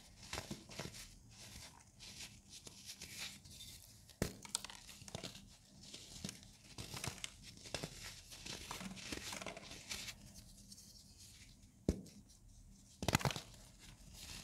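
Powdery baking soda chunks crumbled and squeezed in a bare hand: a continuous run of soft crackling crunches and powdery crumbling. Sharp snaps come about four seconds in and near twelve seconds, with a loud cluster of snaps shortly after thirteen seconds.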